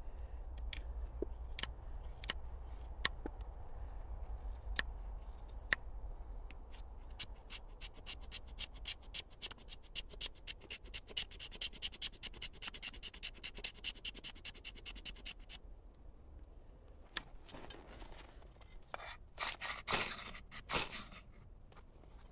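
Steel knife blade shaving curls off a wooden stick to make a feather stick: a few separate cuts, then a quick run of short strokes, about five a second. Near the end, a few loud scrapes of the knife spine down a ferro rod, throwing sparks onto the shavings.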